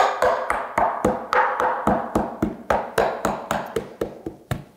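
Saddle maker's hammer tapping glued leather down onto a saddle tree's ground seat, setting the cover so it sticks. The taps come in a quick, even run of about four a second, the first the loudest.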